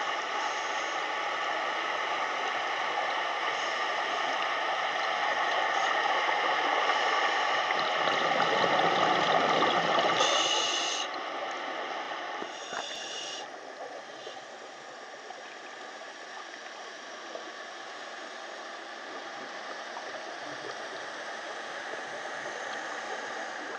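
Water gurgling and sloshing around a camera held underwater, a steady hiss with faint steady tones in it. It is louder for the first ten seconds or so, then drops, with two brief high hisses around ten and thirteen seconds in.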